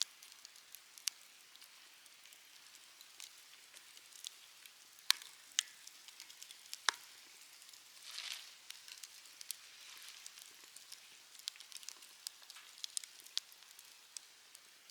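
Wood campfire crackling, with scattered sharp pops over a soft hiss; a louder hiss swells about eight seconds in.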